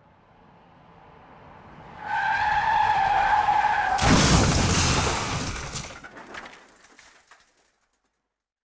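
Car accident sound effect. A vehicle comes on, its tyres screech in a skid for about two seconds, and then it crashes hard about four seconds in. Debris rattles and clatters, fading out over the next three seconds.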